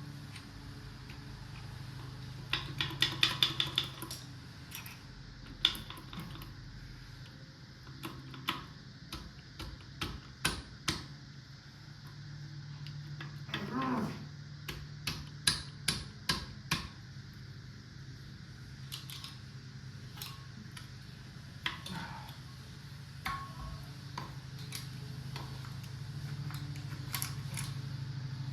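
Metal engine parts and hand tools clinking and knocking while a 6.5 turbo diesel's main bearing caps and bearings are taken out. A quick run of light clinks comes about three seconds in, then scattered single knocks and another cluster in the middle, all over a steady low hum.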